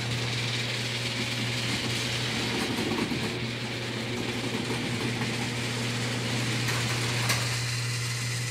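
Electric garage door opener running as the door opens: a steady motor hum with a continuous rattle from the drive and door panels, starting abruptly.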